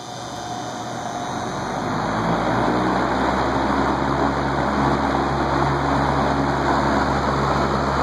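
Vintage Korvettes (Frigid) box fan started from off on high speed: the rush of air and the motor hum build up over the first two or three seconds, then run steady with a buzzy hum.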